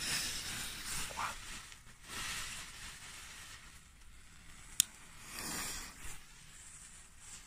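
Strobe pellets burning on paving stones with a fizzing hiss that comes and goes in waves, and a single sharp click about five seconds in.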